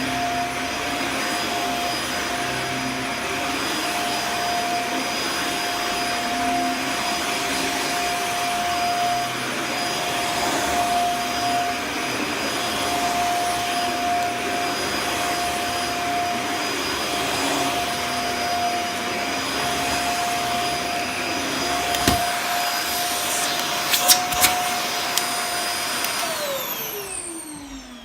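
Dyson Small Ball Multifloor upright vacuum cleaner running steadily with a constant high whine over its airflow noise. A few sharp clicks come near the end. It is then switched off, and the motor's whine falls in pitch as it winds down.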